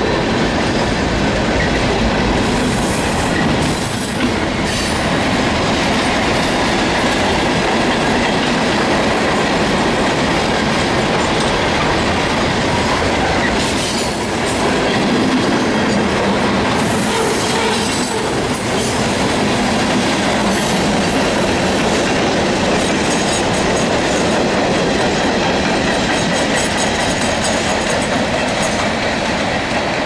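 Freight cars of a mixed manifest train rolling past: a steady, loud rumble of steel wheels on rail with clickety-clack over the joints, and a few brief wheel squeals.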